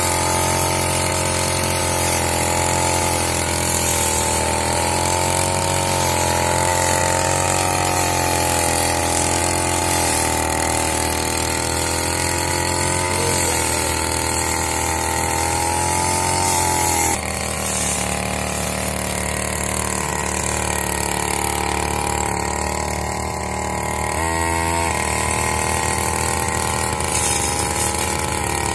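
Backpack brush cutter's 50 cc two-stroke engine running at high revs while cutting grass, its pitch wavering slightly under load. Near the end the revs briefly dip and climb back.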